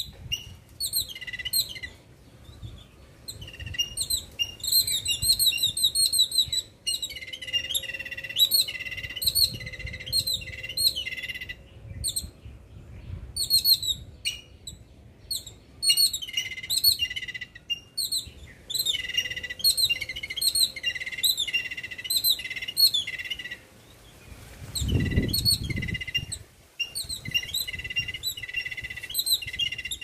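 Yellow-billed babbler chattering in fast runs of harsh, repeated notes, in bouts of a few seconds broken by short pauses. A brief low rumble comes in about 25 seconds in.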